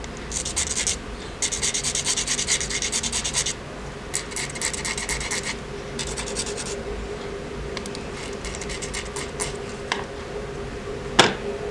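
Small white plastic rod being sanded end-on against sandpaper with quick back-and-forth strokes, in several bursts of scratching with short pauses between, fainter in the later part. A single sharp tap near the end.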